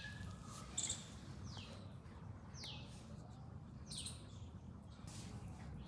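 A bird calling faintly in the background: four short falling chirps about a second apart, over a low steady hum.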